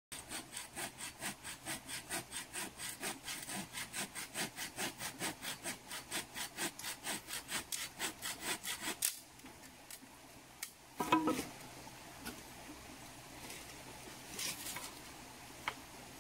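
Small hand saw cutting through a thin wooden pole in quick, even back-and-forth strokes for about nine seconds, then stopping. A short crackle follows about two seconds later.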